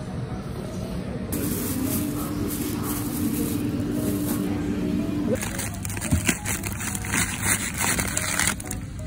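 Plastic packaging crinkling and rustling as it is handled, in dense rapid crackles from about five seconds in that stop shortly before the end, over background music.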